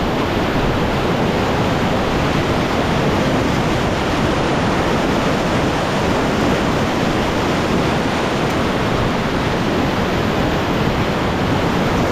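River whitewater rushing steadily.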